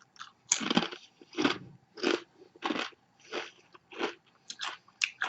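A person biting into a potato chip, then chewing it with a regular series of crunches, about one every half second to two-thirds of a second.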